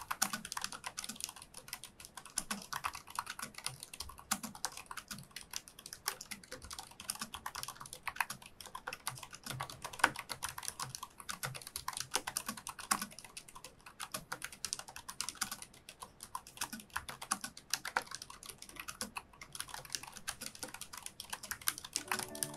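Continuous typing on a Razer DeathStalker V2 Pro low-profile wireless keyboard with linear red optical switches: a fast, uneven stream of keystroke clacks.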